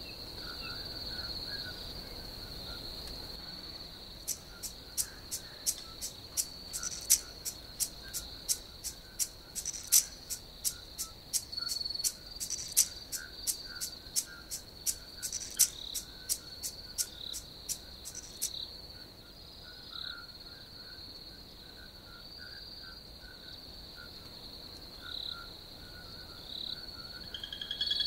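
Crickets trilling steadily at a high pitch, with scattered fainter chirps beneath. From about four seconds in until about eighteen seconds, a sharp, evenly spaced ticking, about three clicks a second, sits over the trill.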